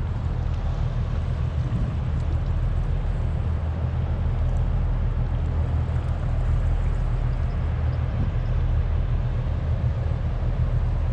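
Strong wind buffeting the microphone: a steady low rumble under an even hiss, with a constant low hum running beneath it.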